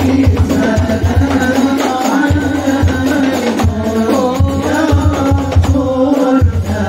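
Sholawat, Islamic devotional songs praising the Prophet, sung in unison by a group of male voices through microphones, over a steady rhythm of hand-drum beats.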